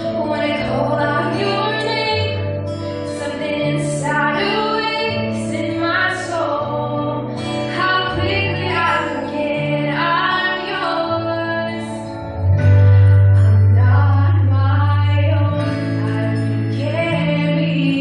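A woman singing a slow love song into a microphone over instrumental accompaniment with sustained bass notes; the bass swells louder about two-thirds of the way through.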